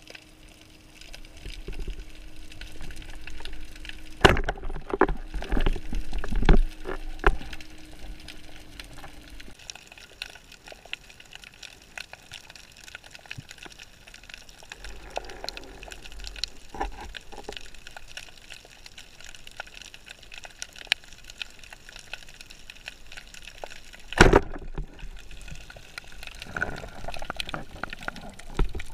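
Muffled underwater sound picked up through a camera housing on a speargun: a steady wash of water noise with a faint hum in the first third, broken by a quick series of sharp knocks about four to seven seconds in and one loud knock past the two-thirds mark.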